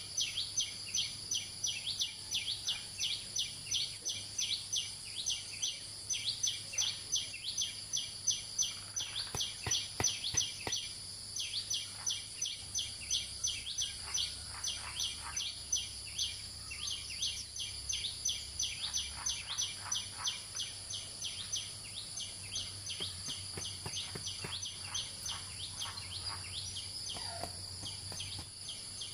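Forest wildlife chirping: a high chirp repeats about three times a second over a steady high hiss. Faint knocks and rattles of bamboo sticks being handled and fitted together come and go in the middle and near the end.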